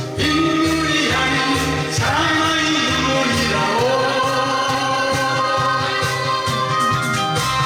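A Korean pop song with a backing track: a held melody line that glides between notes over a steady bass beat.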